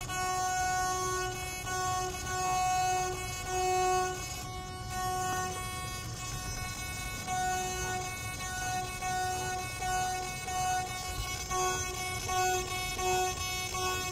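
Savox servo whining as it drives and holds a model aircraft's control surface, a steady electric buzz that swells and fades in irregular pulses as the surface is pushed by hand.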